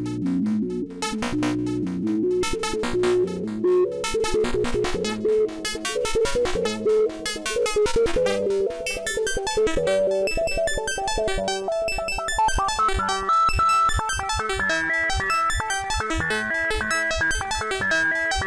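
Make Noise STO oscillator in a Eurorack modular synthesizer, playing a fast, pulsing run of stepped synth notes. The pitch moves upward a few seconds in, and higher notes join the pattern about halfway through.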